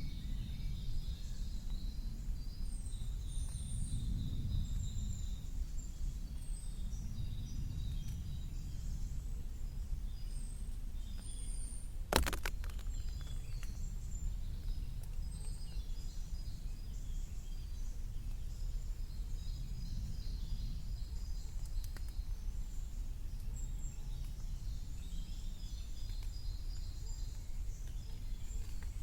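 Spring woodland ambience: several birds chirping and trilling on and off over a steady low rumble. A single sharp tap sounds about twelve seconds in.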